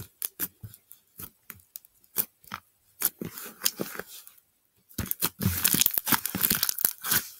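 Several slimes being pressed and stretched together by hand, giving sticky pops and clicks that turn into dense crackling about five seconds in.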